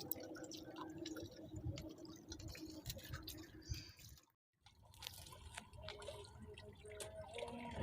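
Faint dripping and trickling water with many small clicks and ticks, cut off briefly a little past four seconds in.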